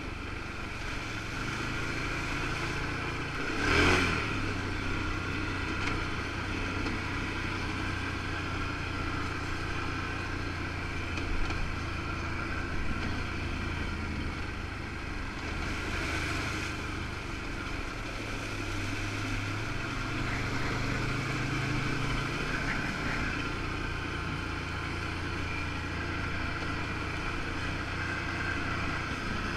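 Engine of a 2013 Can-Am 1000 XT ATV running steadily under way on a dirt trail, its pitch rising and falling with the throttle. A short loud burst of noise comes about four seconds in.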